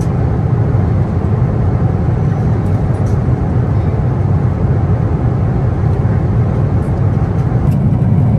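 Steady low rumble of cabin noise inside a Boeing 777-300ER airliner: engine and airflow noise heard from the passenger cabin.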